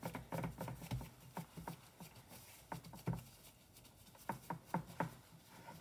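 A gloved hand patting and pressing chiko, a crumbly mix of besso flour and spiced butter, flat into a glass pie dish: a run of soft, irregular pats and taps, with a pause of about a second past the middle.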